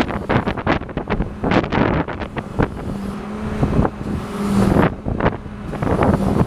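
Wind buffeting the microphone in irregular gusts over the steady hum of the drilling rig's running machinery, which fades in and out a few times.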